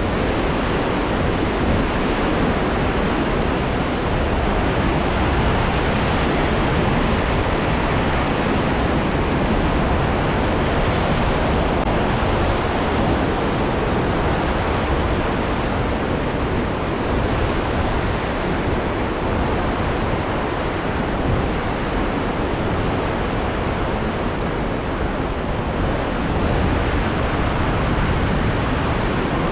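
Steady rushing of the Big Almaty River, a fast-flowing mountain river, as an even, unbroken roar of water.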